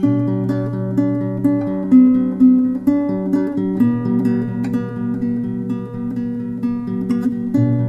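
Background music led by plucked acoustic guitar, notes changing every half second or so.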